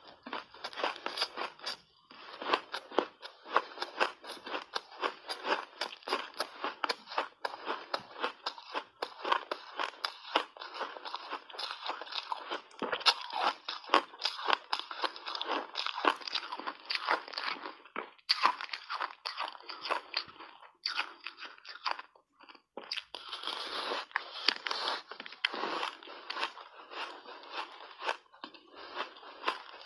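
Refrozen ice coated in matcha powder crunched and chewed in big mouthfuls, close up: a dense, irregular run of crackling crunches, with brief pauses about two seconds in and about 22 seconds in.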